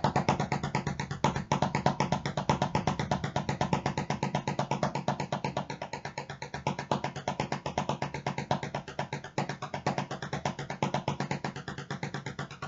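Wooden drumsticks playing a fast, even stream of strokes on a drum practice pad at a steady tempo, both hands at about the same level: a stick-control exercise stepped up to a faster tempo.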